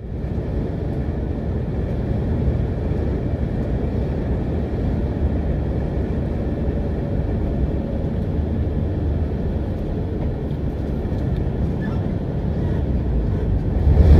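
Steady road and engine noise inside a motorcoach cruising at highway speed, mostly a low rumble.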